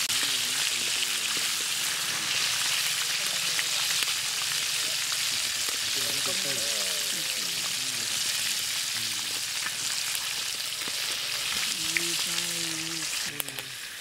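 Battered chicken pieces deep-frying in hot oil in a metal kadai: a steady, loud sizzle of bubbling oil. The sizzle drops off sharply near the end.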